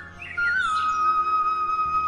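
Background instrumental music: a flute-like melody makes a short turn, then holds one long note from about half a second in, over a low steady drone.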